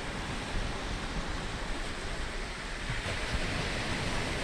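Steady wash of ocean surf breaking on the shore.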